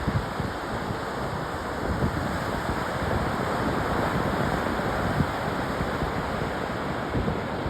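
Ocean surf washing on a beach, a steady rushing noise, with wind rumbling on the microphone.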